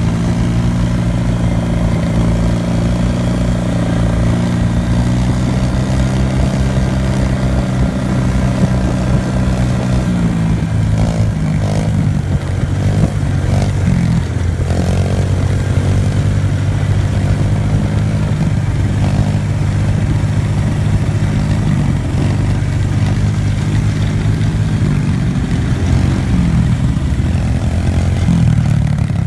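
A quad's engine running steadily at trail speed close by, mixed with a Kawasaki KLX 110 dirt bike's small four-stroke single-cylinder engine riding just ahead; the engine pitch wavers a little in the middle, then settles.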